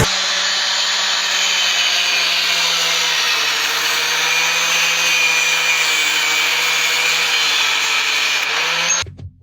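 Electric angle grinder running steadily at speed, a constant motor whine over a bright hiss. It cuts off abruptly about nine seconds in.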